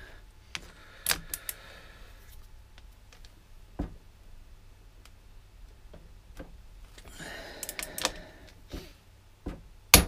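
Click-type torque wrench tightening differential carrier bolts towards 65 ft-lb: scattered sharp metallic clicks and two short ratcheting rattles as the wrench is worked and reset. The loudest clicks come at the very end, as the wrench clicks off at torque.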